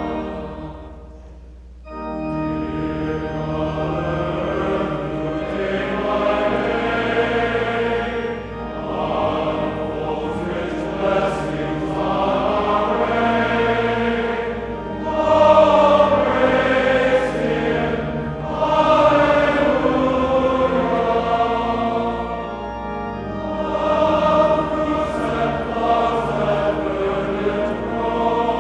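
Choir singing with pipe organ accompaniment; the sound dips briefly near the start, then the choir and organ take up again and continue.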